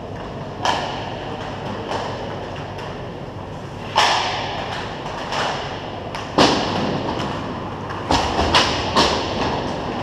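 Ice hockey play: skate blades scraping across the ice, with sharp knocks of sticks and puck, the loudest about four and six seconds in and a quick cluster of hits near the end.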